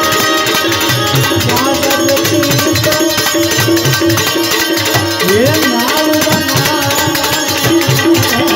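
Indian instrumental music: a benjo (Indian banjo) playing a melody over a fast, steady tabla rhythm, with manjira hand cymbals ticking along.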